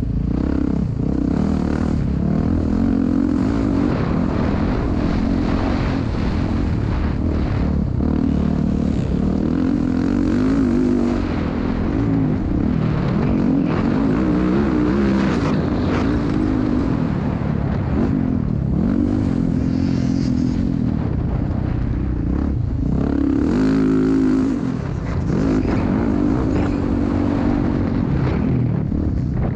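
Motocross dirt bike engine revving up and falling back again and again as the bike accelerates, shifts and slows around a dirt track, with a brief drop in level about three quarters of the way through.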